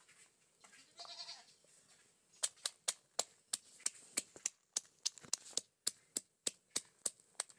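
Wooden pestle pounding fresh peppers in a wooden mortar: sharp, even knocks about three a second, starting a little over two seconds in. About a second in there is a brief, fainter pitched call.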